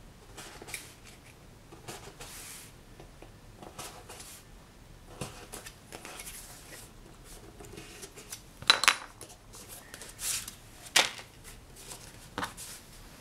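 A bookbinding awl piercing the fold of a heavy black paper signature in a punching cradle: scattered soft pokes and paper rustling, with a few sharper crackles of the paper being pierced, loudest about two-thirds of the way through.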